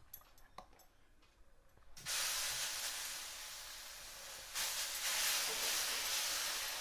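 Millet adai batter sizzling on a hot dosa griddle: a sudden loud sizzle about two seconds in that slowly fades, then rises again a little before the five-second mark as more batter is ladled on and spread.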